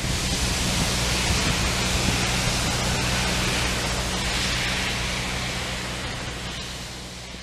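Construction plant's diesel engine idling, a steady low hum under a steady hiss, fading toward the end.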